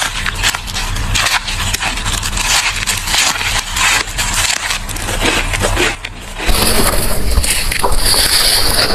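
Close-miked crunching of ice, dense crackly crunches one after another, as in ice being bitten and chewed. The tone changes abruptly about six and a half seconds in, where a different recording of crunching takes over.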